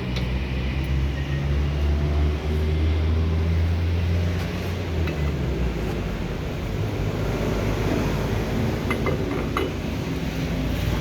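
Brake lathe running with a steady low hum, with a few light metallic clicks near the end.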